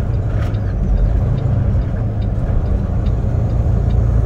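Tractor-trailer's diesel engine and road noise while driving at highway speed: a steady low rumble, with faint light ticking about twice a second.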